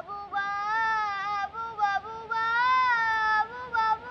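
A young girl singing a melody in a high voice, moving through several notes and holding some of them for about a second.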